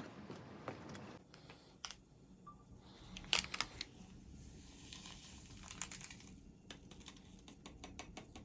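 Irregular light clicks and crinkling rustles that come in clusters, with the loudest group about three seconds in.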